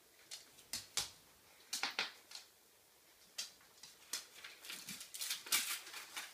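A small dog's claws clicking and scrabbling on a laminate floor in irregular bursts, busiest near the end.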